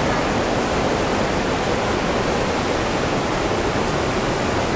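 Big waterfall with a steady, loud rush of falling water.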